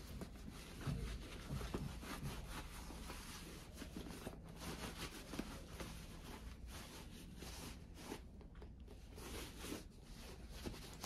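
Cloth rubbing and wiping the leather upper and rubber sole of a Dr. Martens boot while cleaning it. The sound is faint, irregular scuffing strokes, a little louder about one and two seconds in.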